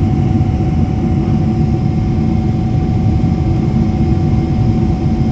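Airliner cabin noise in flight: a steady low rush of engines and airflow, with a faint steady hum above it.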